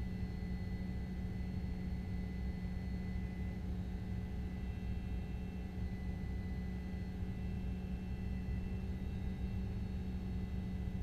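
Steady low rumble and hum of a vehicle running, heard from inside the cab, with a constant drone and no changes.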